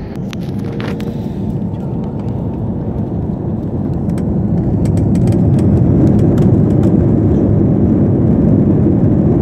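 Jet airliner's engines spooling up to takeoff thrust, heard as a deep rumble inside the passenger cabin. It grows louder over the first five or six seconds and then holds steady as the takeoff roll gets under way, with a few faint clicks.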